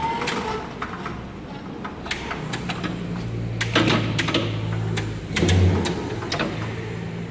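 Electric walk-behind pallet stacker being driven: its drive motor sets up a steady hum about two and a half seconds in. Sharp clicks come throughout, and a louder knock about five and a half seconds in as the forks are run in under the pallet.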